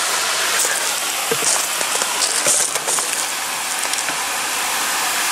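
Steady rushing of river water, with a few short sharp splashes or knocks between about one and three seconds in.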